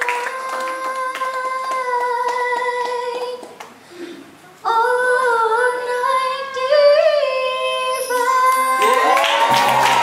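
A girl singing long held notes into a microphone through a PA speaker, with people clapping along in time. The singing breaks off for about a second near the middle and then resumes. Near the end, applause and music with a low bass come in.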